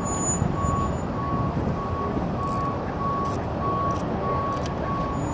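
A vehicle's reversing alarm beeping steadily, about two single-tone beeps a second, over a constant background rumble.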